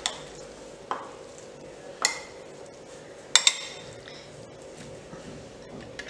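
Metal spoon clinking against a glass bowl while stirring a wet chickpea, potato and yogurt mixture. There are about four sharp clinks over the first three and a half seconds, each with a short ring, then softer stirring.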